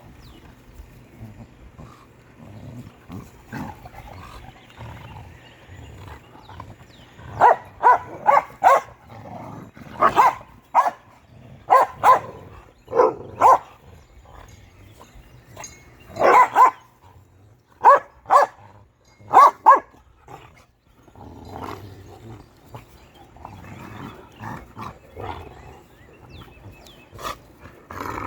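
Dogs barking in short, sharp bursts, about fifteen in clusters through the middle stretch, with quieter low sounds before and after.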